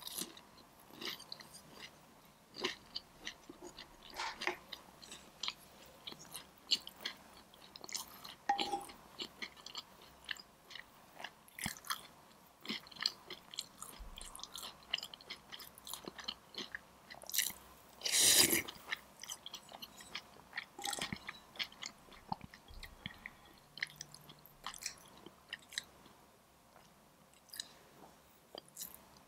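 A person chewing food close to the microphone: a string of irregular, soft, wet mouth clicks, with one louder, longer mouth sound about two thirds of the way through.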